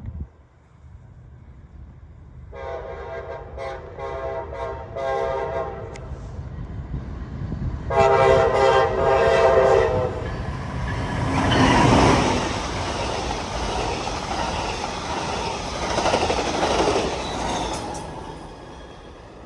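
Amtrak Pacific Surfiner locomotive's multi-chime air horn sounding a string of short blasts, then one longer, louder blast about eight seconds in. The train then passes with a rumble and a clatter of wheels on the rails, which fades near the end.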